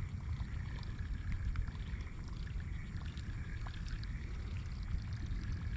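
Steady low rumble of wind on the microphone, with faint scattered ticks from a spinning reel retrieving a topwater lure.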